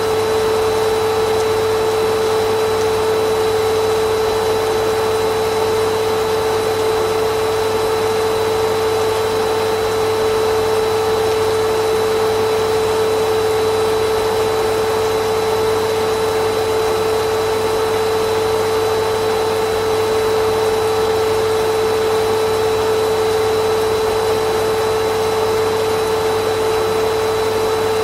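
Vacuum cleaner motor running continuously at a constant speed: a steady whine over an even rush of air, with no change in pitch or loudness.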